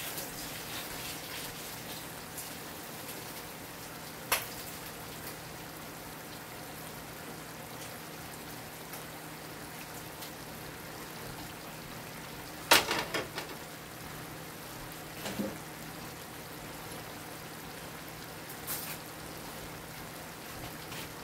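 Steady sizzling hiss of food cooking on a stovetop, broken by a few sharp clicks and knocks, the loudest cluster about 13 seconds in.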